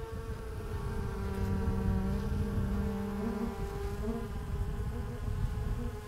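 Honeybees buzzing over an opened hive full of frames: a steady hum of many wingbeats at several overlapping pitches. A lower drone joins about a second in and drops away a little past halfway.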